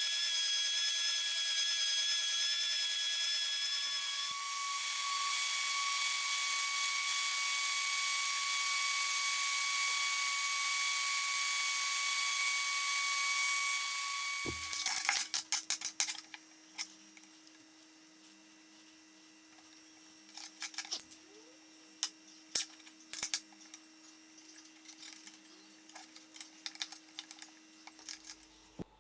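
A power tool running steadily, its pitch shifting slightly a few seconds in, then switched off about halfway through; after it stops, scattered light clicks and knocks of workpiece or tool handling.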